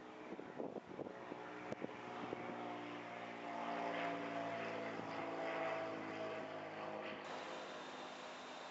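A steady engine drone with several held tones, swelling about midway and easing off toward the end, with a few light clicks in the first two and a half seconds.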